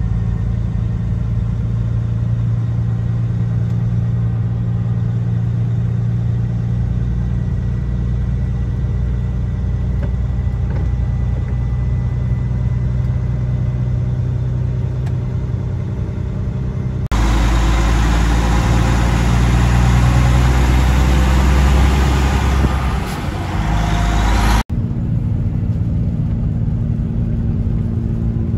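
A road train's diesel engine drones steadily, heard from inside the cab. About two-thirds of the way through, a loud rushing noise suddenly covers it for several seconds, then cuts off sharply.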